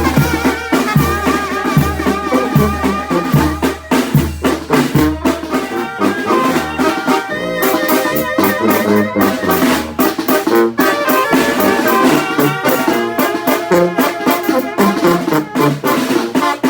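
Oaxacan brass band (banda) playing: brass carries the melody over drums and a pulsing bass line that eases off about five seconds in.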